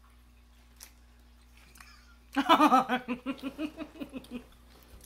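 A woman laughing in a quick run of short pulses for about two seconds, starting a little past halfway; before it only faint room sound.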